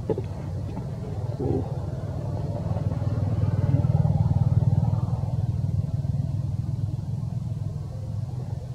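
Low, steady rumble of a motor vehicle's engine running, swelling about three seconds in and easing after about five.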